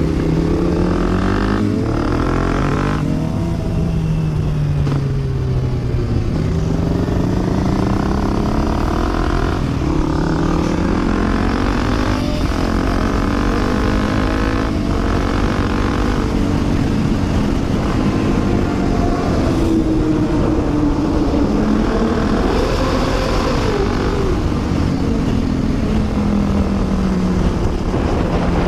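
Kawasaki KLX250S single-cylinder engine accelerating through the gears. Its pitch climbs and then drops at each upshift, several times over, and settles into a steadier run near the end. Wind rushes over the microphone throughout.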